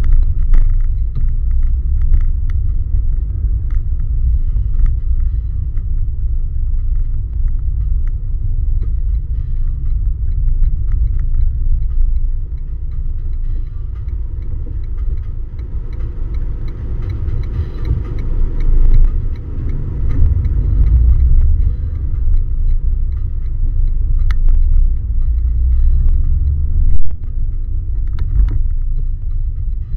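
Car driving slowly, heard from inside the cabin: a steady low rumble of engine and road noise, with a few light clicks and rattles and one brief louder bump near the end.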